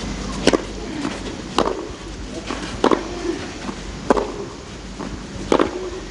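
Tennis rackets striking the ball in a rally on clay: a serve about half a second in, then four more sharp hits, each a little over a second apart.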